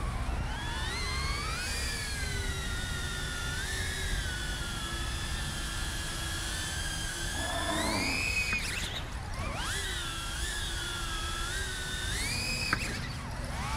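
DJI Avata FPV drone's motors and propellers whining, the pitch rising and falling with the throttle. About eight seconds in, the whine climbs sharply and then briefly drops away, as the throttle is punched and then cut for a split-S. It climbs and falls again near the end, with one sharp click, over a steady low rushing noise.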